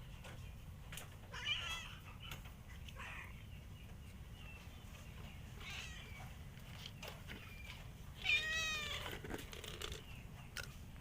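Stray cats meowing to beg for food: several short meows, then one louder, longer meow about eight seconds in, over a steady low hum.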